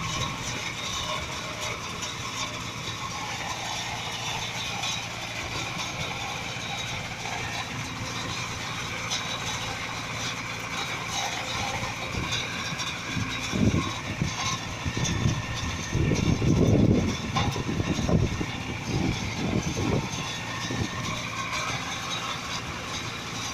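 Concrete pump running steadily during a pour, a constant engine drone with a steady hum. About halfway through, a cluster of louder, irregular low thumps and rumbles lasts several seconds.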